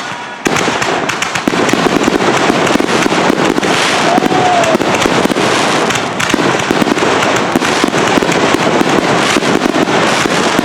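Fireworks going off in a dense, continuous barrage, with many bangs and crackles overlapping without a break.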